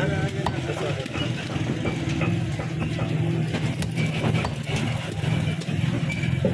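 A steady low mechanical hum, with short knocks from a cleaver chopping fish on a wooden block.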